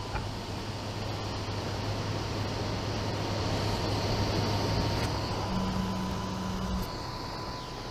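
Print-Rite DIY 3D printer running mid-print: a steady fan whir with the hum of its stepper motors driving the print head, swelling through the middle and with a short steady motor tone about five and a half seconds in.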